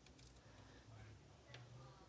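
Near silence: room tone with a low hum and a few faint clicks, one just after the start and one about one and a half seconds in.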